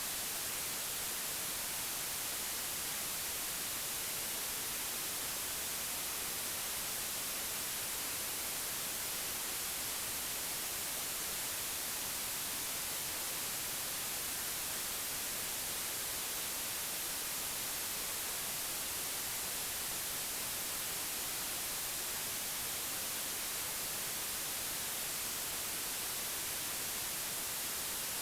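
Steady white noise: an even, unbroken hiss, brightest in the high frequencies, with no change in level.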